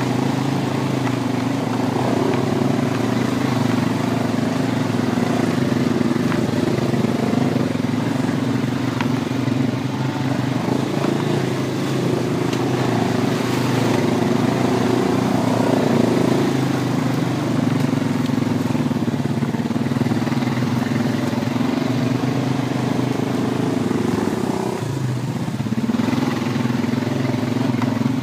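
Honda Rancher ATV's single-cylinder four-stroke engine running under way at a fairly steady pace, its note wavering slightly with the throttle, briefly dropping off near the end and then picking back up.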